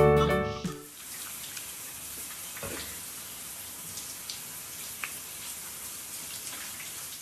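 Music cuts out within the first second, then a steady, even hiss with a few faint ticks.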